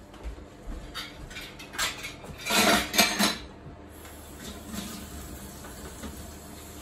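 Dishes and utensils clattering in a stainless-steel kitchen sink, with a few knocks and then a loud burst of clatter about halfway through. After that the tap runs steadily.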